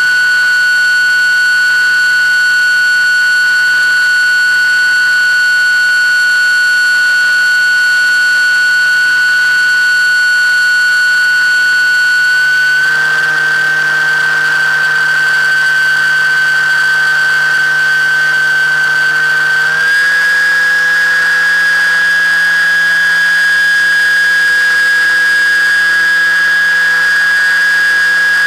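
Electric motor and propeller of an FPV model aircraft, recorded on board, whining steadily at a high pitch. The pitch steps up slightly twice, about 13 and 20 seconds in, as the motor speeds up.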